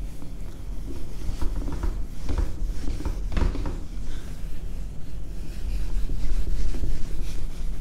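A whiteboard duster wiped in repeated strokes across a whiteboard, a rubbing swish with each stroke, over a steady low hum.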